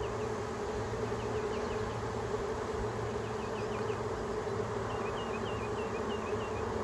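Steady buzzing of a large mass of honey bees, a package colony just shaken into a new hive and flying around the entrance.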